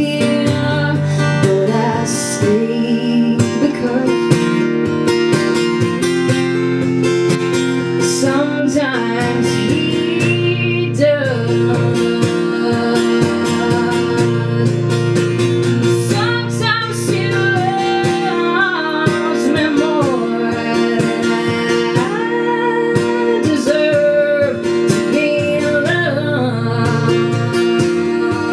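Music: a steel-string acoustic guitar strummed in a slow song, with a sliding melody line over the chords.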